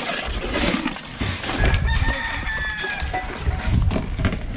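Rooster crowing once, starting about a second and a half in and lasting just over a second.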